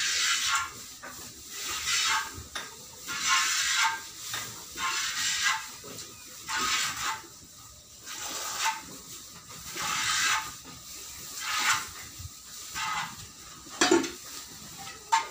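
Milk squirting from a cow's teat into a pail during hand milking: a hissing spurt with each squeeze, about one every second or so. A sharp knock near the end is the loudest moment.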